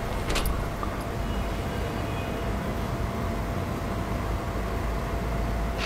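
Steady low hum of distant road traffic, with one short click about half a second in.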